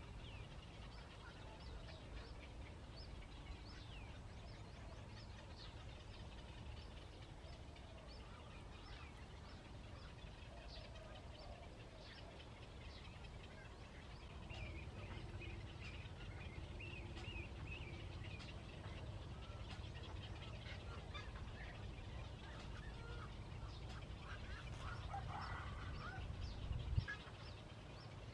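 Many birds calling with short, rapid chirps over a steady low rumble, with a louder call near the end.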